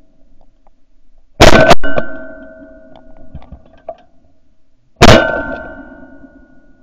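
Two shotgun shots at a flying mallard drake, one about one and a half seconds in and the second about three and a half seconds later, each very loud and followed by a ringing tail that fades away.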